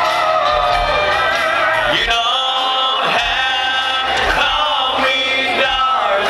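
Live country concert music: a full band playing with a male voice singing, picked up from within the arena audience, with a steady beat.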